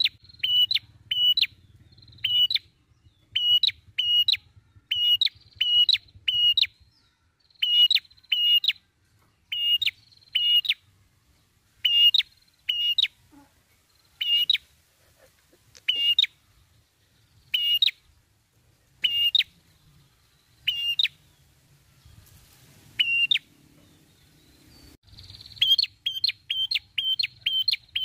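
Ashy tailorbird singing: a long series of short, sharp repeated notes. They come quickly at first, spread out to about one every one to two seconds in the middle, pause a few seconds before the end, then run quickly again.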